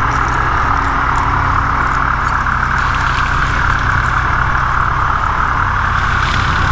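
Kayak-mounted electric trolling motor running at a steady speed: a constant, unchanging drone with a low hum beneath it.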